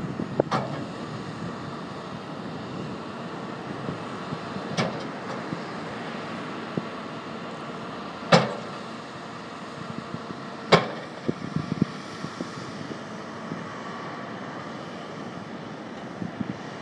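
A hydraulic excavator's diesel engine running steadily as it places riprap boulders. Sharp knocks of bucket and rock come about four times, loudest about eight and eleven seconds in.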